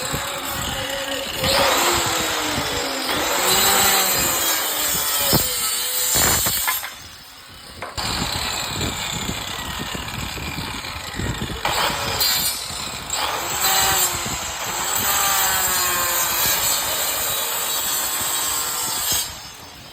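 Woodworking power tool cutting wood, its pitch rising and falling as it works. It pauses once about seven seconds in, then runs again until shortly before the end.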